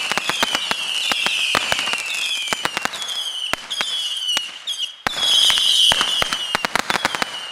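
A 750-shot Saturn missile battery firing a rapid stream of small whistling rockets. The overlapping whistles each fall slightly in pitch, among many sharp pops. The barrage thins out briefly a little over four seconds in, then comes back at full strength.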